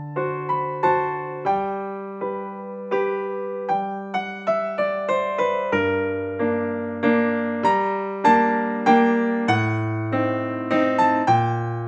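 Background keyboard music: a melody of separate notes that each strike and die away, over held low notes.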